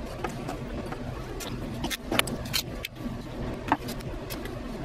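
Scattered clicks, crackles and snaps of a wiring harness being handled as its shielding and tape are stripped off, over a steady low hum. Two sharper snaps stand out in the second half, a second and a half apart.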